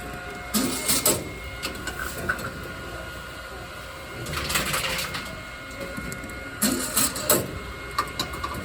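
Plastic bottles being fed into a Tomra T-53 reverse vending machine: two rounds of sharp clattering knocks about six seconds apart, with a brief rushing whir between them, over the machine's faint steady hum.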